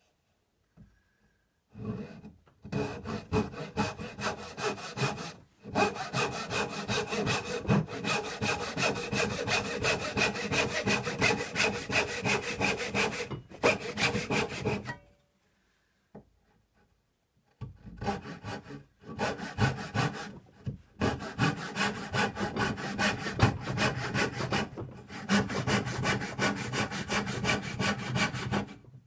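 Hand backsaw cutting into a pine board held in a vise, with quick, even back-and-forth strokes, sawing the sides of a notch for a joint. It comes in several runs, with a pause of about two and a half seconds in the middle.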